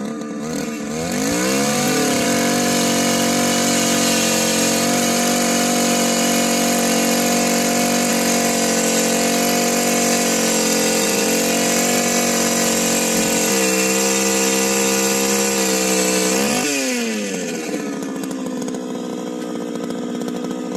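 Gas-powered two-stroke ice auger revving up about a second in and running at high speed as it bores through the pond ice. Near the end it drops back to idle.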